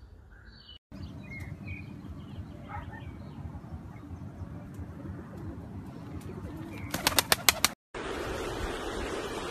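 Pigeon's wings clapping as it takes off: a quick run of about seven sharp claps, about seven seconds in, over low outdoor rumble with a couple of faint bird chirps. After a sudden cut, a steady rushing noise follows.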